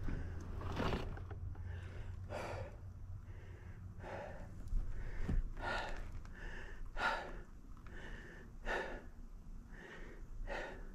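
A mountain biker breathing hard, short breaths about one a second.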